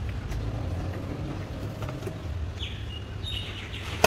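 Hand-tool work on a metal bracket under a car dashboard over a steady low rumble, with a few short high chirps about two and a half seconds in and a single sharp metallic click near the end as a combination wrench goes onto a bolt.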